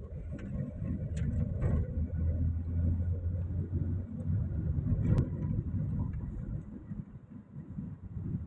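Car driving, heard from inside the cabin: a steady low engine and road rumble, with a few short sharp clicks or rattles, the sharpest about five seconds in.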